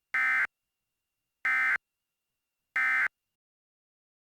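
Three short Emergency Alert System end-of-message data bursts, the warbling SAME digital tones, each about a third of a second long and a little over a second apart. They mark the end of the alert message.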